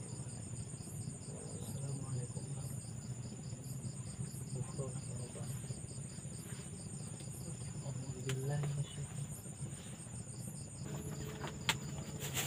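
Night insects trilling in a steady high-pitched chorus with a fast, even pulse, over a faint low hum; a single sharp click near the end.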